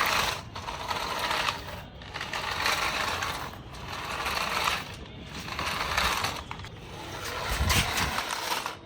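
Toy remote-control car's small electric motor and gearbox whirring in repeated bursts, about six throttle pulses of a second or so each with short breaks between.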